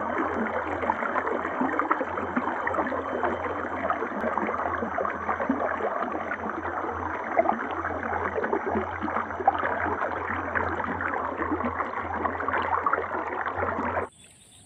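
Water from a small cascade rushing steadily over a rock ledge, cutting off suddenly near the end.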